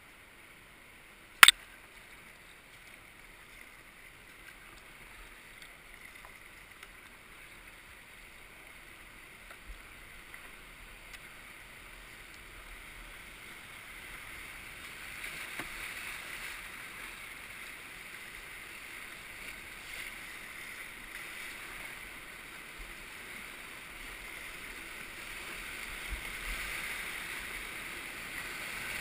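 River water rushing past a kayak, growing steadily louder as it nears whitewater rapids at a broken dam. A single sharp knock about a second and a half in.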